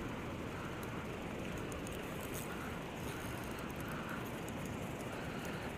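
Steady rushing of river water running through shallow riffles.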